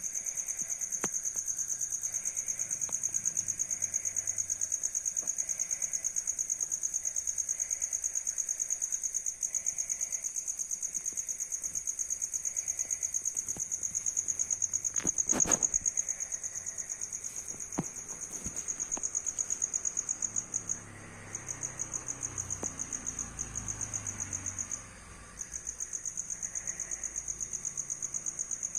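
Cricket chirping in a steady, high-pitched, rapid pulsing rhythm that breaks off briefly twice near the end. A single knock sounds about halfway through.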